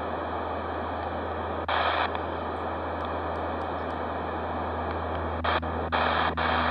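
Radio static hissing steadily from a Raddy RF320 portable radio's speaker, tuned to an empty VHF FM channel near the 146.52 MHz national calling frequency with no station on it. The noise surges louder briefly about two seconds in and several times near the end as the frequency is stepped.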